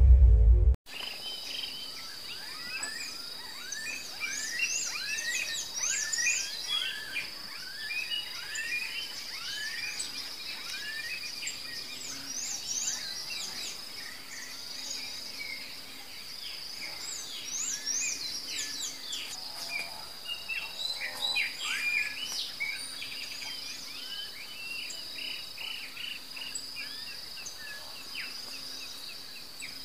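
Outdoor ambience of insects and birds: a steady high insect trill runs under many short, sweeping bird chirps. The tail of a music intro cuts off under a second in.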